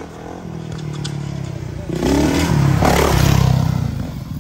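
Dirt bike engine revving hard as the bike accelerates past close by, getting louder to a peak about three seconds in and then fading as it pulls away.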